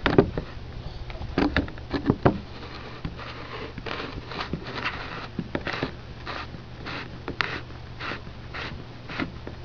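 PVC barrel sections being screwed together by hand at a threaded plastic coupling: a few knocks at first, then a run of short scraping strokes, about two a second, as the coupling is twisted.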